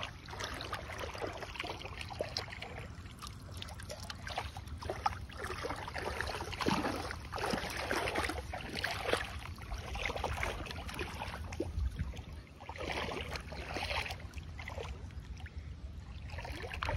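Shallow muddy water sloshing and splashing irregularly as feet and hands wade and grab through it, over a steady low rumble.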